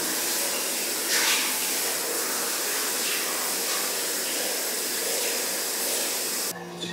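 Handheld shower head spraying water over a small dog being bathed in a glass shower stall: a steady hiss of running water, with a brief brighter splash about a second in. It stops shortly before the end.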